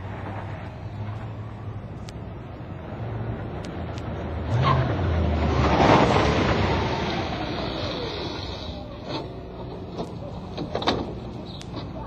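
A car driving past with its tires squealing, building to loudest about halfway through and then fading. A few sharp knocks follow near the end.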